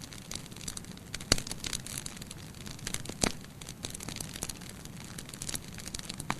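Bonfire burning: a steady low rumble of flames with frequent sharp crackles and pops of burning wood, two louder snaps about a second and three seconds in.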